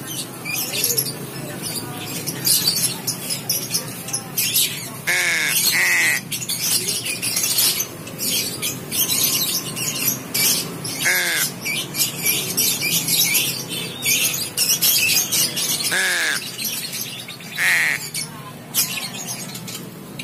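Young crow, about five months old, giving about five short harsh calls a few seconds apart, two of them close together early on. Many short, high-pitched clicks or chirps fill the background.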